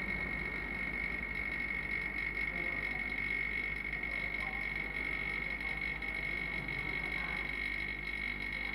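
Vacuum laminating machine and its electric vacuum pump running steadily, with a steady high whine over a low hum, drawing the vacuum while the new glass is pressed onto the phone screen.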